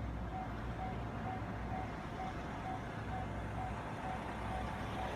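Japanese railway level-crossing warning bell ringing in an even rhythm, roughly two and a half strokes a second, which signals that a train is approaching. A steady low rumble sits underneath.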